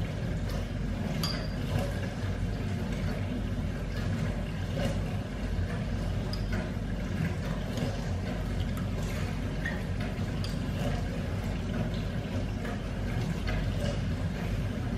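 A spoon clinking lightly and now and then against a ceramic cereal bowl while eating, over a steady low rumble.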